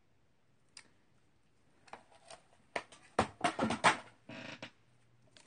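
Small craft tools being handled on a desk: a cluster of sharp plastic clicks and rattles about two to four seconds in, then a short scrape.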